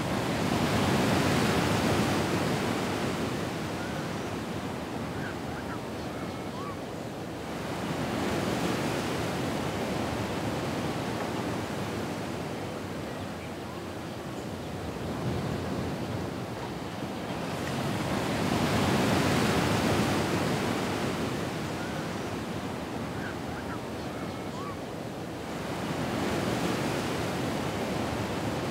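Ocean waves washing onto a shore and drawing back, swelling and fading in slow cycles several seconds apart, with the strongest swells near the start and again past the middle.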